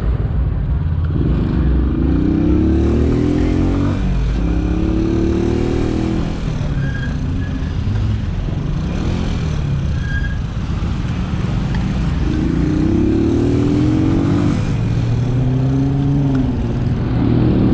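The Italika DT 125's single-cylinder four-stroke engine pulls through the gears, climbing in pitch and dropping back several times, under steady wind and road noise on the move.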